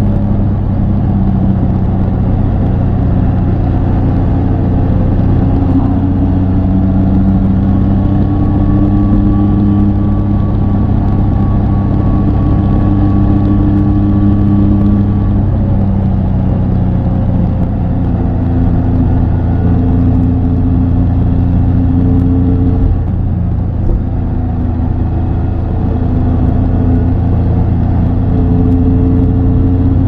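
Triumph Tiger 800 XCA's 799 cc inline-triple engine running steadily while riding, its pitch drifting slowly up and down with a constant low rumble beneath, and a brief dip in loudness about three-quarters of the way through.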